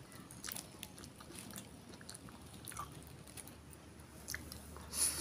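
Faint close-up mouth sounds of a person chewing soft lumpia basah filling, with small wet clicks, and a brief louder hissy noise near the end.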